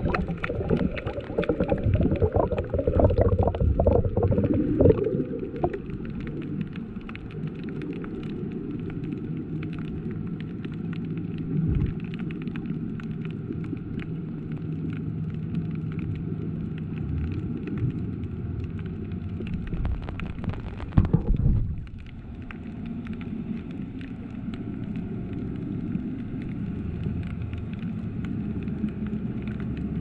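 Muffled underwater ambience picked up by a submerged camera: a steady low rumble of water with faint crackling, louder and busier for the first five seconds or so. A faint steady hum runs through the middle, and a short loud rush of water comes about 21 seconds in.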